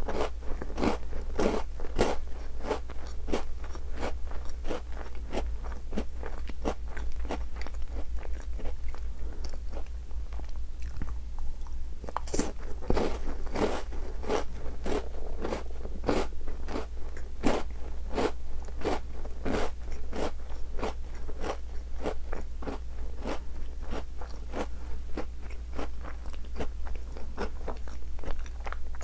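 Close-miked chewing of chocolate-coated Tim Tam biscuits: a steady run of crisp crunches, about one to two a second.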